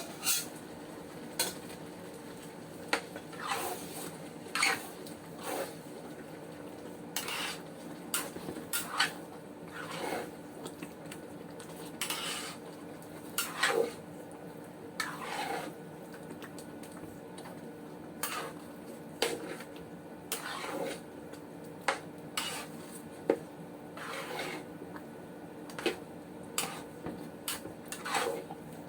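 A utensil scraping and knocking against a cooking pot as a pot of sautéed mung beans is stirred: irregular clinks and scrapes every second or so over a faint steady hum.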